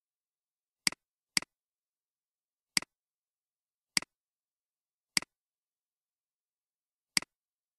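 Computer mouse button clicking six times at uneven intervals, each a sharp click followed at once by a fainter release click, with dead silence between.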